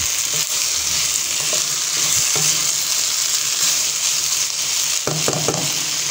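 Diced potato, carrot and onion sizzling in oil in a nonstick frying pan while a wooden spatula stirs them, with a few spatula scrapes against the pan about five seconds in.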